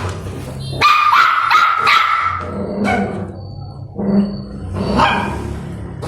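Puppy barking angrily over food: a quick run of high yapping barks about a second in, then a few more single barks.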